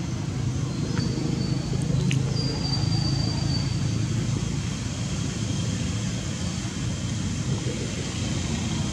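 Steady low outdoor background rumble, with a brief thin high tone about two seconds in and a few faint clicks.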